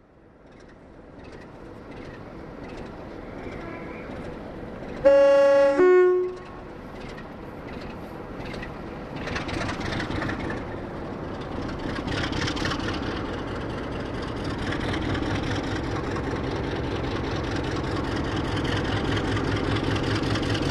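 A train horn sounds two notes, high then low, about five seconds in, over railway sound that fades in and builds into the running rumble and clatter of a train on the rails, growing louder toward the end.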